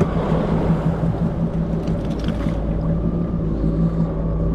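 Yamaha WaveRunner jet ski engine running steadily at low speed, with a short rush of hissing noise near the start and again about two seconds in.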